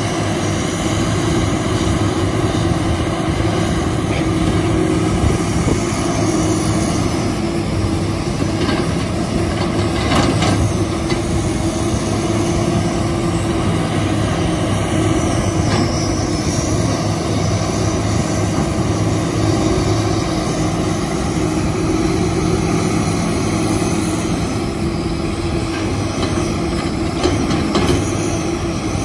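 Kobelco SK350 hydraulic excavator's diesel engine running steadily as the machine digs and loads a dump truck, a constant engine drone without pauses.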